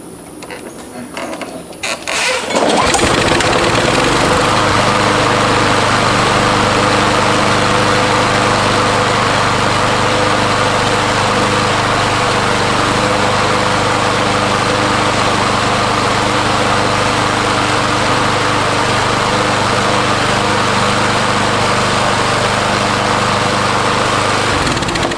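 Walk-behind lawn mower's small engine pull-started, catching about two and a half seconds in and then running steadily at an even speed, stopping suddenly just before the end. It runs once the sticking operator-presence control mechanism has been moved by hand.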